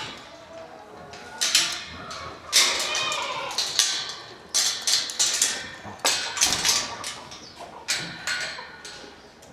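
Goats moving about the pen: a run of sharp knocks and clatters, with a goat bleating about two and a half seconds in.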